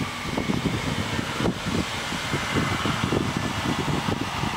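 Wind buffeting the microphone: an irregular low rumble that comes and goes in gusts, with a steady hiss above it.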